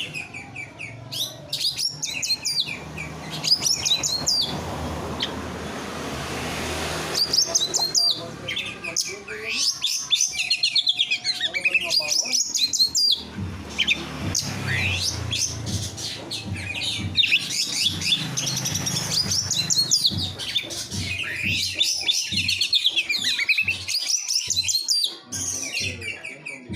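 Songbirds singing a dense run of rapid, sharp high chirps and trills, one phrase crowding on the next, with a brief hiss a few seconds in.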